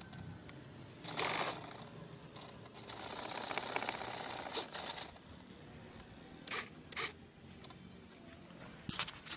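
Small hobby servos on an RC foam jet whirring in short bursts as the transmitter sticks move the control surfaces, with a few sharp clicks near the end.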